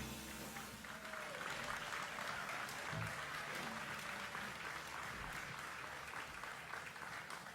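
Audience applauding at the end of a song: many hands clapping at an even, fairly low level.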